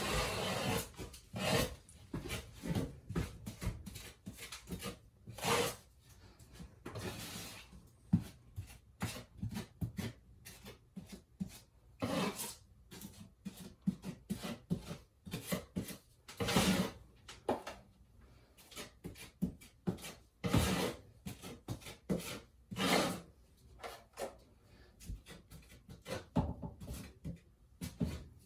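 Putty knife scraping spackling compound, in irregular short strokes with pauses between them.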